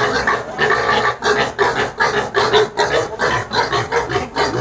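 Piglets squealing loudly, one squeal after another in quick succession.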